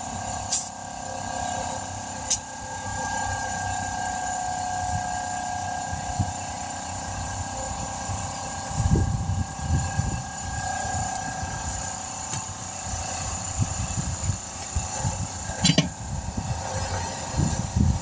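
A machine runs steadily with a constant hum. Sharp clicks come about half a second and two seconds in and again near the end, and low knocks and bumps from about halfway on come from a tire being handled.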